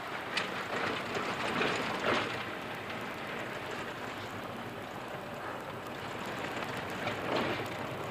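Road noise from inside a vehicle driving on a rough dirt road: a steady rush of tyres on gravel and dirt, broken by a few brief knocks and rattles.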